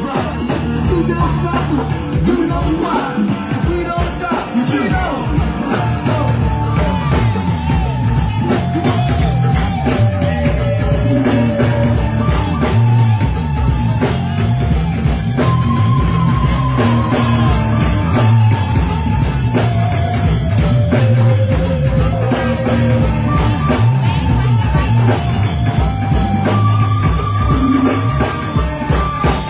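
Live go-go band playing loud: a driving, even percussion beat under held melody notes that step from pitch to pitch.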